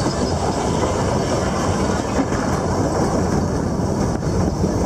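Puffing Billy narrow-gauge steam train running, heard from aboard a carriage: a steady rumble and rattle of wheels on the rails.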